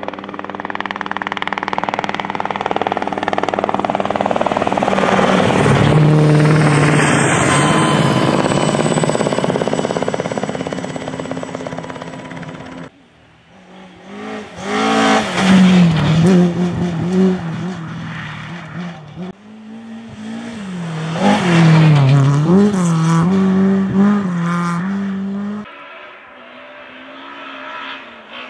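A helicopter flies overhead, its rotor and engine sound swelling, dropping in pitch as it passes and fading. After a sudden cut, a rally car's engine revs hard, rising and falling repeatedly through gear changes as the car approaches on the stage, then quietens near the end.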